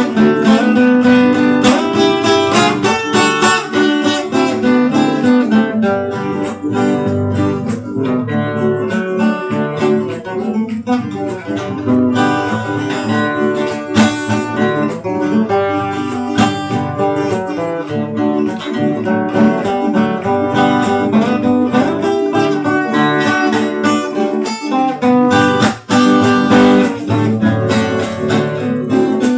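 Two acoustic guitars playing together: a picked solo melody over a strummed chord accompaniment.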